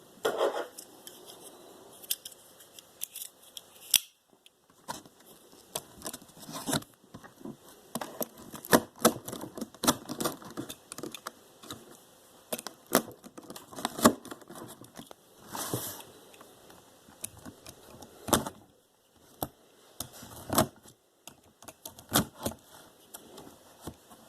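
Irregular clicks, taps and rustles of a cardboard box and its packaging being handled and opened by hand to take out a toy RC car.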